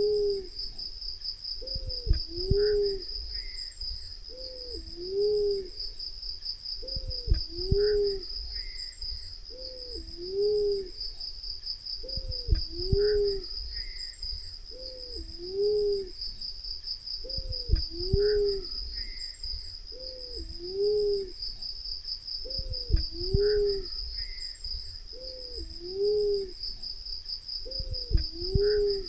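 Black-naped fruit dove calling: a low two-part coo, a falling note then a rising-and-falling one, repeated about every two and a half seconds. A steady high insect chorus runs underneath, and a low thump comes with about every other call.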